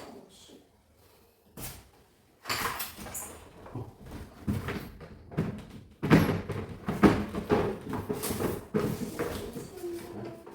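A run of knocks, clatters and rubbing noises of things being handled. It starts after about two seconds of near quiet with a single knock and grows busier and louder past the middle.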